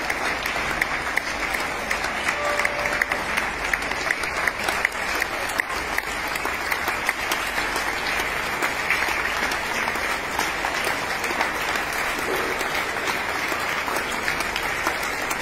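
A crowd applauding steadily, many hands clapping at once with no break.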